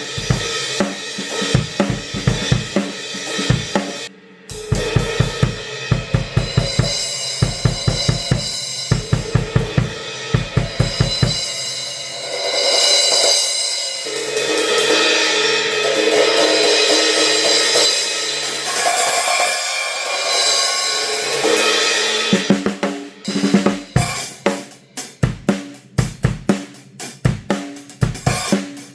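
A drum kit played with a compact Zildjian A City Pack cymbal set. A beat with kick, snare and cymbals gives way, about twelve seconds in, to a long ringing cymbal wash with no kick drum, and the beat comes back for the last several seconds.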